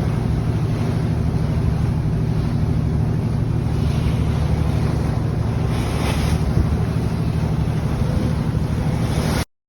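Lobster boat's engine running steadily under way, with wind buffeting the microphone and the wash of water. The sound cuts off abruptly near the end.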